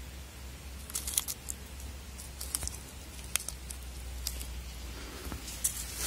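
A kitten playing with a toy mouse on a string over dry leaves and dirt: scattered light ticks and short crinkly rustles, with a steady low hum underneath.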